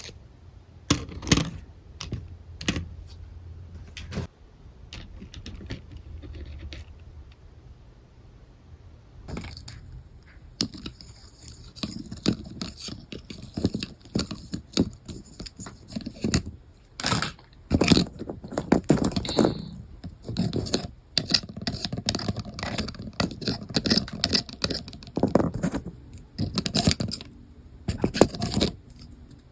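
Small plastic toy kitchen pieces being handled, with irregular clicks, taps and clatter, busier and louder in the second half.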